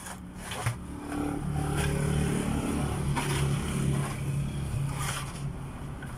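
A passing road vehicle's engine swells about a second in, runs steadily and eases off near the end. Occasional scrapes and knocks of a mop on a wet van floor come through.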